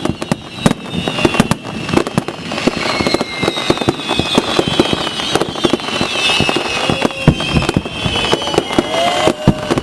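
Fireworks display: many rapid bangs and crackles going off one after another, over high whistling tones that slowly fall in pitch.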